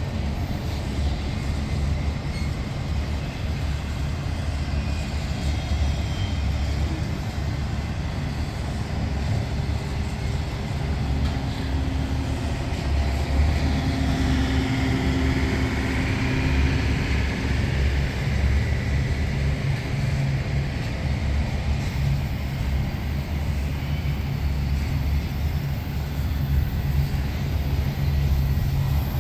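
Union Pacific intermodal freight cars rolling past: a steady low rumble of steel wheels on rail.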